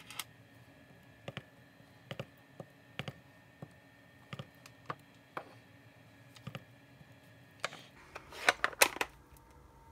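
Clear acrylic stamp block tapping on an ink pad and pressing onto cardstock: sharp, irregular clicks about once a second, with a louder cluster of knocks near the end.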